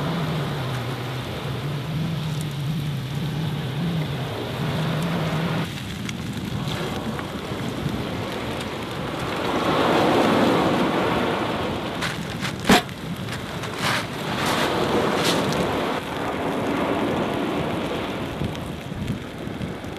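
Raw beef burger patty sizzling steadily in hot oil in a frying pan. A low hum fades out about six seconds in, and there is a single sharp click a little past the middle.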